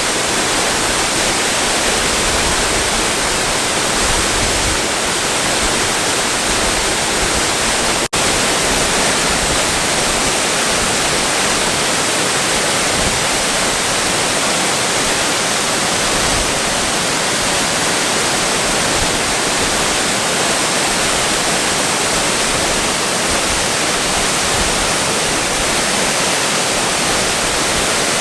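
Waterfall rushing steadily, an even, full roar of falling water, with a split-second dropout about eight seconds in.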